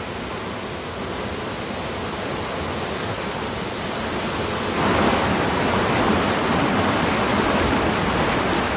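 Steady rush of falling water from a waterfall cascading down a rock face. About five seconds in it gets louder and fuller as the sound becomes the churn of a mountain river's white-water rapids.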